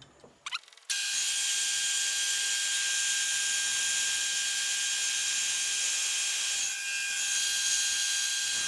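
Metal lathe running as it bores a bronze bush, played back sped up: a steady high whine with a hiss of cutting. It starts abruptly about a second in.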